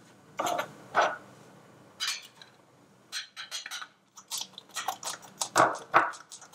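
A few knocks of a spatula against a stainless steel mixing bowl, then from about three seconds in a hand-operated flour sifter clicking rapidly as its handle is worked, sifting flour over the batter.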